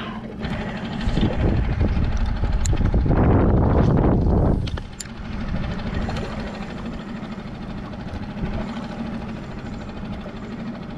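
Wind buffeting an open-air microphone, loudest between about one and four and a half seconds in, over a steady low hum.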